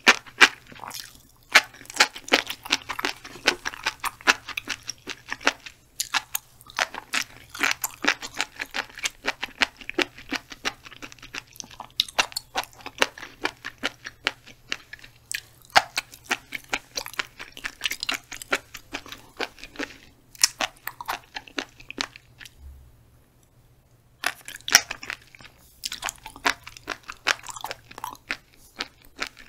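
Close-miked chewing of black flying fish roe: a dense run of tiny sharp pops and clicks as the eggs burst between the teeth. It stops for about two seconds roughly three-quarters of the way through.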